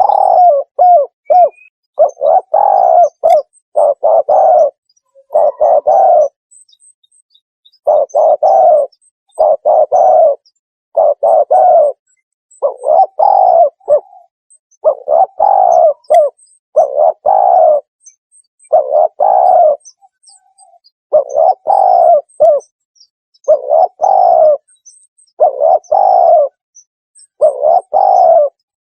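Spotted dove cooing in short, low phrases repeated every second or two, with an occasional longer pause: a recorded lure call used to draw wild spotted doves in for trapping.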